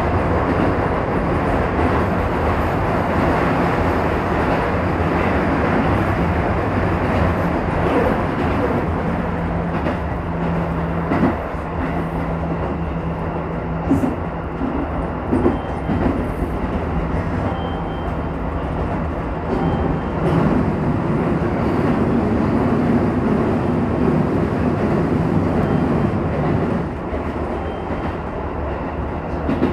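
Keisei 3000 series electric commuter train running between stations, heard from inside the car: a steady rumble of wheels and motors, with a few sharp knocks a third to halfway through.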